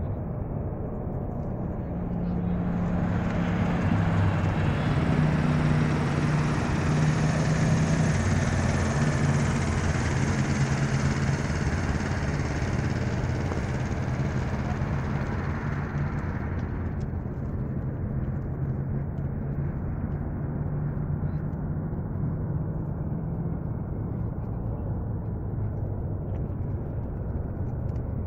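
Jet engine noise of a departing Boeing 787 climbing away after takeoff: a steady low drone that swells into fuller, brighter noise a few seconds in, then thins back to the low drone after about sixteen seconds.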